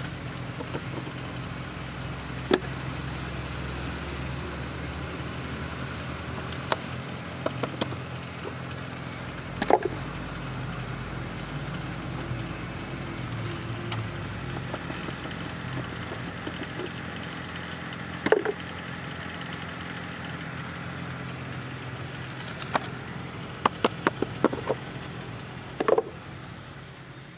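A steady engine hum running throughout, with sharp knocks of plastic tile molds being handled and tapped to release the concrete tiles, scattered at first and then several in quick succession near the end.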